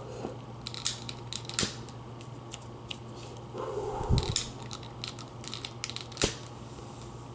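Clicking and handling of a long-nosed utility lighter close to the microphone: a run of sharp clicks, the loudest about a second in, a second and a half in, and about six seconds in, with a dull thump around four seconds.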